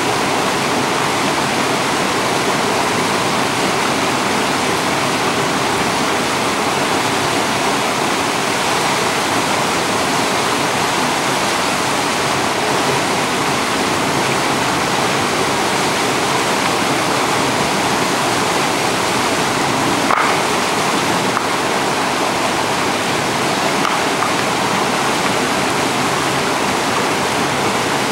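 Small waterfall tumbling over stepped rock ledges into a pool: a steady, loud rush of falling water, with one brief knock about twenty seconds in.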